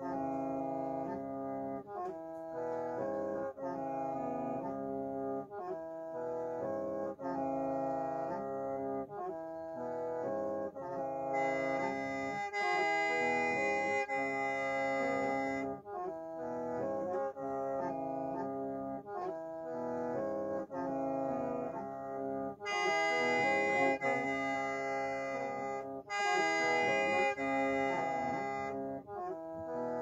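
Mro bamboo mouth organ played solo: several reed notes sound together as a chord in short repeated phrases, with a brief break for breath every second or two. Twice the tone turns brighter and a little louder for a few seconds, once about a third of the way in and again later on.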